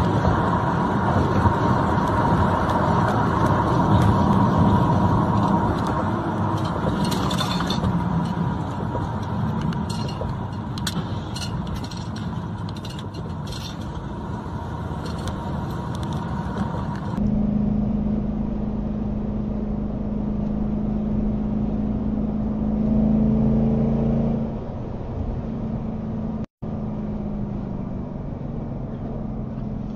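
Road and wind noise from a vehicle driving on a highway, loud and even with a steady whine and scattered clicks. About seventeen seconds in it changes abruptly to a car's steady engine and tyre hum heard from the cabin, which swells briefly before settling.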